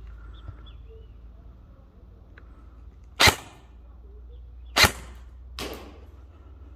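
Airsoft gun firing three sharp pops: two loud shots about a second and a half apart, then a softer one just under a second later.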